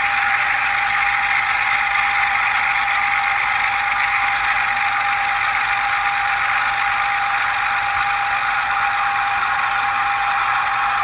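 ScaleTrains HO-scale GE ES44AC's ESU LokSound 5 sound decoder playing its dynamic-brake sound: a steady whine of the brake grid blowers over the running diesel, heard through the model's small onboard speakers.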